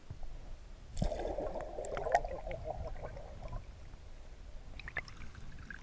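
Water gurgling and sloshing around a camera held just under the surface, busiest from about a second in until about three and a half seconds, then quieter with a few sharp clicks near the end.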